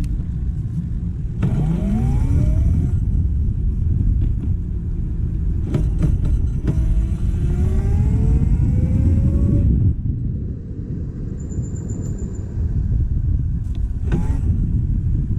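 Vespa scooter riding under a heavy low rumble. It accelerates twice, its pitch rising quickly about a second and a half in and then more slowly for about three seconds from six seconds in, and it eases off at about ten seconds.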